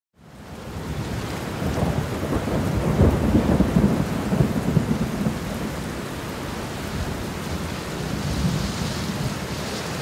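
Steady rain with a low rolling rumble of thunder that is loudest a few seconds in. The sound fades in at the start.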